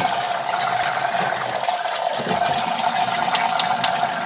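Kitchen tap running full into the sink, with the water splashing over hands rinsing fish and a steady pitched note in the rush of the flow. A few light clicks come near the end.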